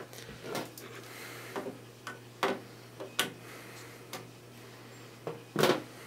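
Scattered light clicks and taps of a screwdriver being handled and set against the screws of a desktop computer's metal case, roughly one a second, with a louder knock near the end, over a steady low hum.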